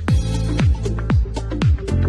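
Background electronic dance music with a steady kick drum, about two beats a second, over a sustained bass line.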